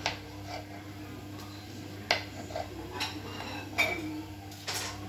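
Kitchen knife chopping carrot on a wooden cutting board: about five separate knocks of the blade on the board, slow and unevenly spaced, over a steady low hum.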